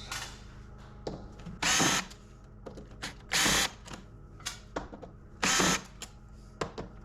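Power drill run in three short bursts of about half a second, roughly two seconds apart, driving screws out while a metal control panel's casing is taken apart. Light clicks and knocks come between the bursts.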